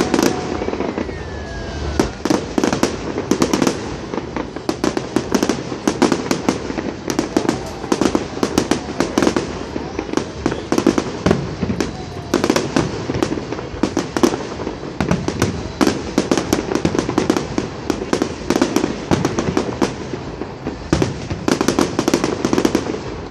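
Aerial fireworks shells bursting in rapid succession: a dense, unbroken run of bangs and crackles.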